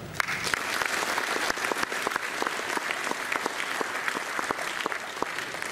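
Audience applauding: many hands clapping in a dense, steady patter that starts right away and eases off slightly near the end.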